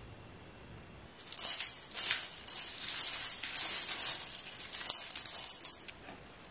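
Salt scooped with a wooden spoon and sprinkled over cut cucumber pieces in a stainless steel bowl: a high hissing rattle of falling grains in a run of short spurts, starting about a second in and stopping near the end.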